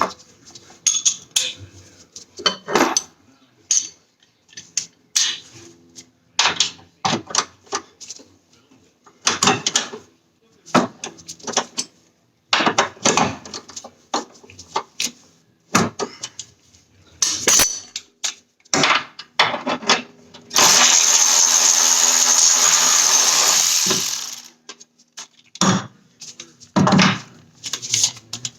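Metal tools and car parts clanking and knocking during suspension work, with a power tool running in one steady burst of about three and a half seconds near the end.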